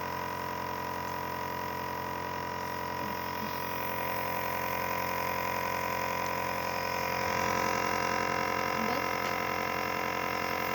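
Compressor nebulizer running with a steady, even hum while it nebulizes medicine.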